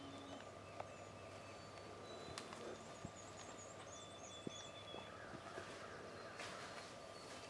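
Faint quiet outdoor ambience: a run of quick high chirps from a small bird between about two and four seconds in, over a steady faint high tone, with scattered soft ticks and a brief rustle near the end.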